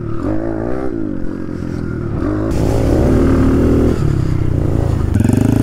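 Small dirt bike engine heard from on the bike, revving with its pitch rising and falling as the throttle is opened and eased, getting louder about halfway through.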